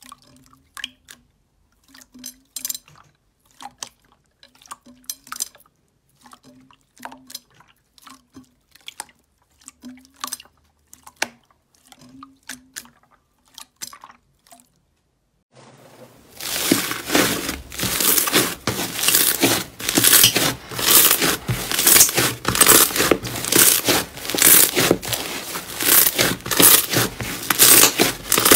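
Clear slime squished and stretched by hand in a bowl: sparse, quiet sticky squelches and pops. About halfway through it gives way to a louder, dense crackling as a white slime is pressed down with the fingers.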